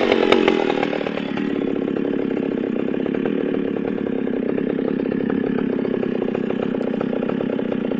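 Vintage Pioneer P51 two-stroke chainsaw coming off the throttle after a cut. It settles about a second in into a steady, rapidly pulsing idle.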